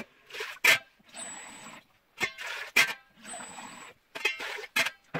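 Water run from a kitchen tap into a glass in two short spells, with sharp knocks and clinks of the glass against the saucepan and sink between them as the water is poured into the pot.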